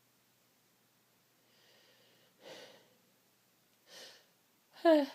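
A woman's sneeze build-up: quiet breathing, two sharp in-breaths, then a loud, short gasping "ah" falling in pitch near the end as a sneeze threatens.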